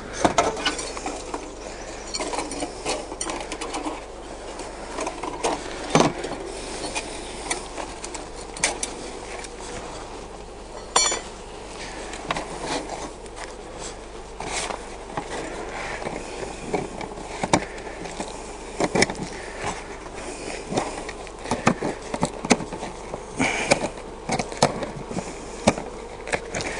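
Honey bees buzzing steadily around an open Langstroth hive, with irregular sharp clicks and knocks scattered throughout.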